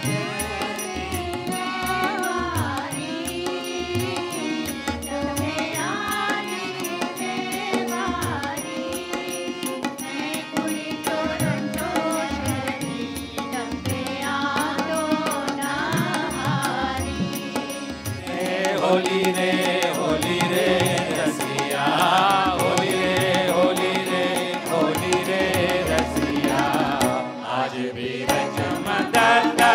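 A choir of senior and adult singers sings an Indian devotional song in unison, accompanied by tabla strokes. The singing grows fuller and louder about eighteen seconds in.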